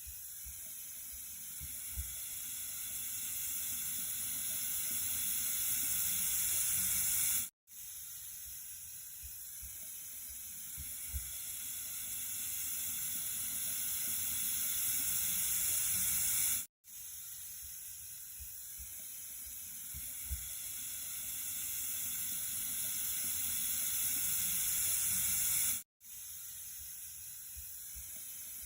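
Running water with a steady, hissing rush, strongest in the high range. It swells slowly for about nine seconds, cuts to silence for an instant and starts over, three times, with a faint low knock a couple of seconds into each stretch.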